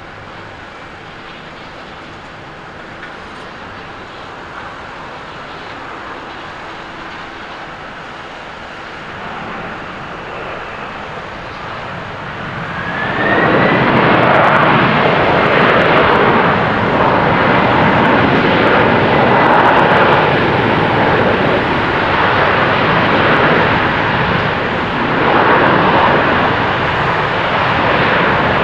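Boeing 767-300ER airliner landing. A steady jet rush grows slowly as it comes in. About halfway through, just after touchdown, a rising whine is followed by a sudden loud roar as the engines spool up into reverse thrust, and the roar carries on through the rollout.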